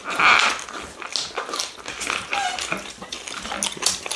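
Close-up eating sounds: chewing and wet lip smacking on meat and rice, with a string of short clicks.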